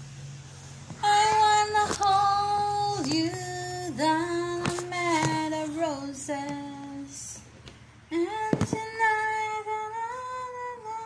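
A woman singing, holding long notes with small slides between them, in two phrases: the first from about a second in to about seven seconds, the second starting about eight seconds in.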